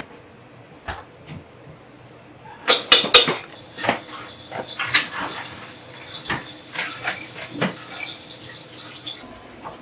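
Kitchen clatter: metal utensils and dishes knocking and clinking, a couple of single clicks and then a busy run of sharp knocks through the middle, over a faint steady hum.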